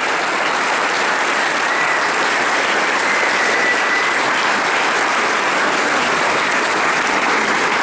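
Loud, steady applause from an audience.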